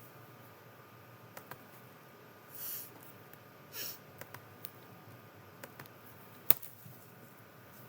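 Quiet room with scattered small clicks and taps, two short hissing breaths a little over a second apart, and one sharp, louder click about six and a half seconds in.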